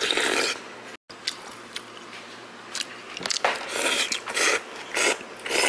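Someone eating jjamppong noodle soup close to the microphone: short slurps and chewing, a run of about five slurps in the second half, with a few light clicks between.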